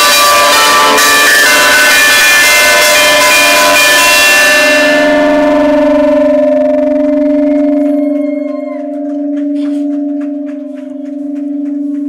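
Large church bells ringing very loud at close range in the belfry, a dense clash of tones. About five seconds in the striking stops, and the bells' low hum rings on, slowly fading with a pulsing swell and fall.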